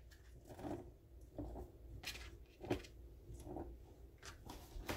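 Kitchen knife slicing a cucumber into rounds on a plastic cutting board: a series of faint soft cuts, the sharpest a little under three seconds in.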